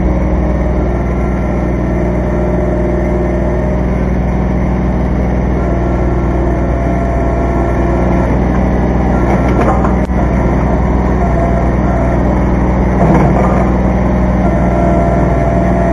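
Kubota B2320 compact tractor's three-cylinder diesel engine running steadily as its front loader works, with a thin whine coming and going over it. A single short knock about ten seconds in.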